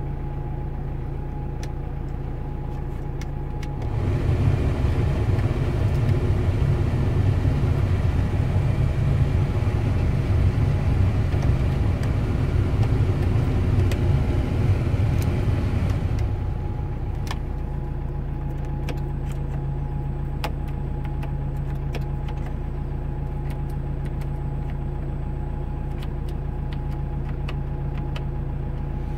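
Van engine idling steadily, heard from inside the cabin. About four seconds in, the heater/air-conditioning blower fan comes up to a loud steady rush of air, then drops back about twelve seconds later. Light clicks of dashboard knobs and buttons being worked.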